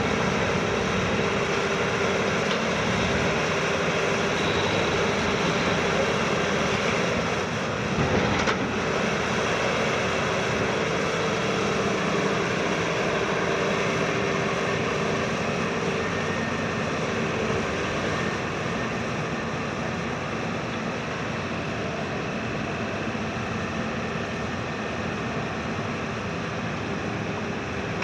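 The 210 kW diesel engine and hydraulics of a Hitachi KMC 380 S-6 long-front demolition excavator running under load, with a steady whine that fades out about two-thirds of the way through. A short, louder knock comes about eight seconds in.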